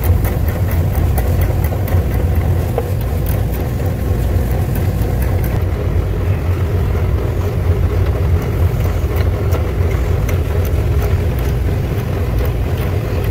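Steady low mechanical rumble of running machinery, with faint light clicks of a hand ratchet working on the fasteners.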